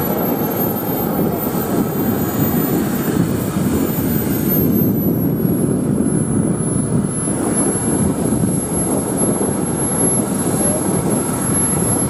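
Small gas-turbine engine of a radio-controlled model jet running as the jet taxis: a steady rushing roar with a thin high whine on top. The whine rises in pitch in the first second as the throttle comes up, holds, then drops back about four to five seconds in.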